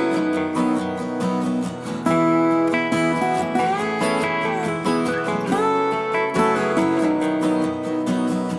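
Background music: strummed and picked acoustic guitar playing a light, upbeat tune.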